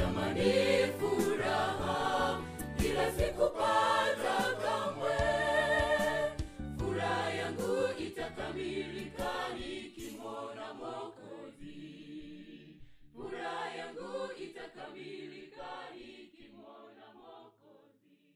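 Gospel choir singing in Swahili over instrumental backing, the song's closing passage. It grows quieter about halfway through and fades out near the end.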